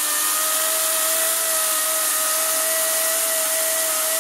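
EGO 56-volt cordless electric chainsaw (model CS1401, 14-inch bar) cutting straight through a wet, frozen landscape timber under load: a steady whine of the electric motor and chain, with the hiss of the chain chewing through the wood.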